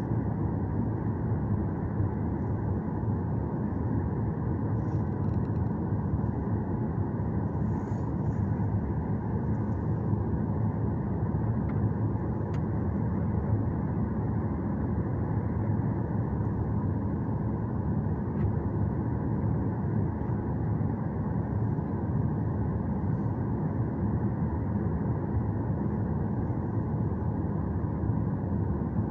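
Steady jet engine and cabin noise heard inside an airliner's cabin as it taxis slowly on the ground at low thrust.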